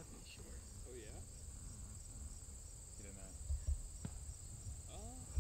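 A steady, high-pitched chorus of insects, an unbroken trill with a faint regular pulse, over a low rumble.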